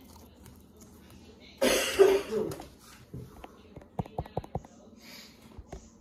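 A person coughing once, about a second and a half in, followed around four seconds in by a quick run of about six sharp clicks and pops as cloud slime is pressed down into its tub.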